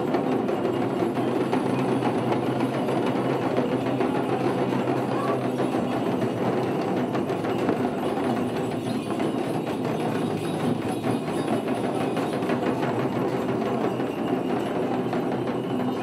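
Many dhyangro, the shamans' double-headed frame drums with carved wooden handles, beaten fast with curved sticks in a steady, dense rhythm.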